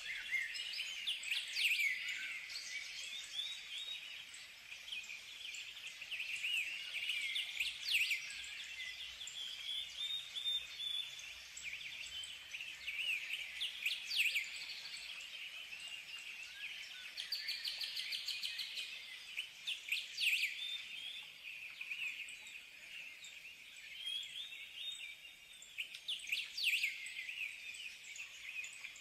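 Birds chirping and twittering continuously, with a louder sharp call about every six seconds.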